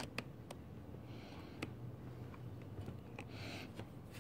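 A small drill bit scraping faintly into a cracked aluminium GY6 scooter crankcase in two short bursts, with scattered faint clicks. The drill is making a shallow indent at the end of the crack to stop it spreading.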